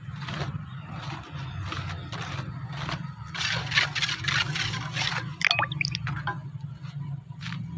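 Small steel trowel spreading and working wet cement into a square tray mould: repeated wet squishing and scraping strokes, busiest in the middle, over a steady low hum.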